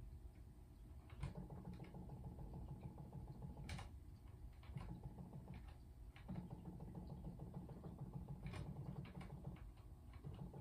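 Model railroad turntable being jogged to realign it: a faint low motor hum that starts and stops several times, with scattered light clicks.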